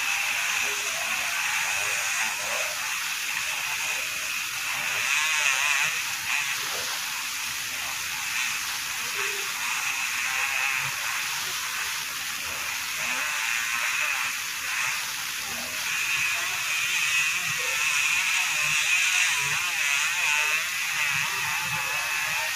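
Dirt bike engines revving hard under load on a steep climb, the pitch rising and falling in bursts several times.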